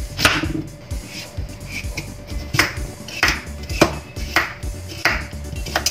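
Chef's knife chopping through raw squash and knocking onto a wooden cutting board: one sharp knock near the start, then a run of about six from midway, roughly every half second.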